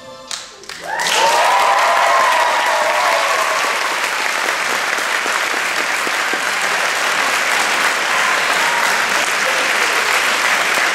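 Audience applauding and cheering, starting suddenly about a second in as the dance music ends. High whoops and shouts ride over the clapping for the first couple of seconds, then steady clapping carries on.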